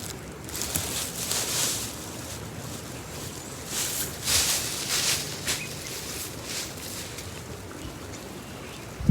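Steady wash of a small creek running, with two spells of hissy rustling, one about half a second in and one about four seconds in.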